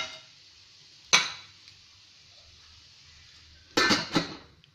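A metal lid clanging against the rim of a non-stick kadai as it is covered: one sharp ringing clang about a second in, then two more clangs close together near the end.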